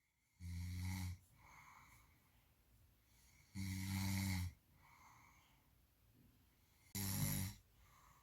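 A man snoring in his sleep: three loud snores about three seconds apart, with softer breaths between them.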